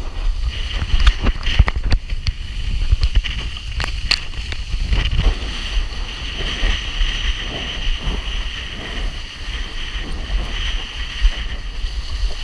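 Wind buffeting the microphone of a camera on a windsurf rig, with water rushing and splashing as the board planes over choppy water. Frequent sharp slaps of spray and chop come through.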